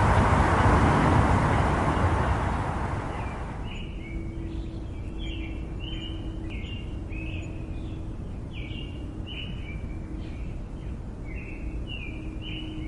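Noise of a passing vehicle fading away over the first three seconds or so. Then small birds chirp repeatedly in short, quick calls over a faint low hum.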